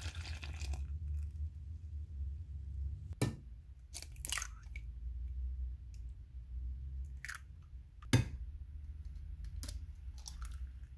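Milky yeast mixture splashing briefly into a glass bowl of flour, then a string of sharp knocks and crunchy clicks from an egg being cracked against the bowl and its shell pulled apart, the loudest knock about eight seconds in. A low steady hum runs underneath.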